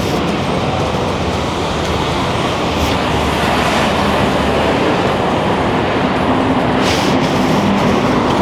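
Loud, steady rumble of passing city vehicles, with a low hum growing near the end.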